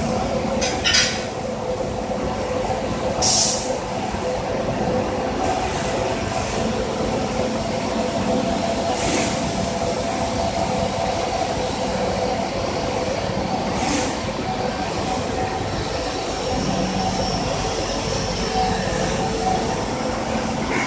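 Steady machine hum with several held tones, from a running four-column hydraulic press and its pump unit. A few short hisses rise over it, the loudest about three seconds in.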